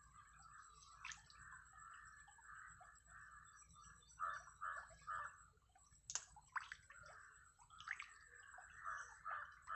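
Faint, steady rush of water pouring through a narrow irrigation channel past a bamboo fish trap, the current strong. A few splashes and sharp knocks come about four seconds in and again near the end.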